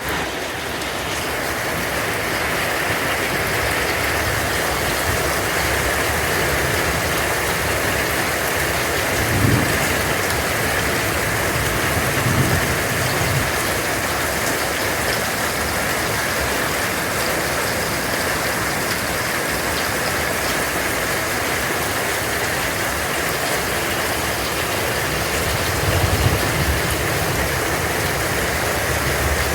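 Hailstorm: a steady, dense hiss of hail and rain pelting down, with a few brief low thuds, about a third of the way in, again shortly after, and near the end.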